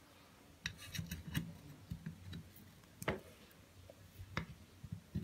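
Scattered light clicks and taps, about half a dozen over a few seconds, of small engine parts and tools being handled during the assembly of a brush-cutter engine.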